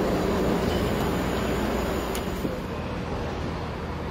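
Diesel multiple unit running through the station: a steady low engine rumble that eases off about two seconds in.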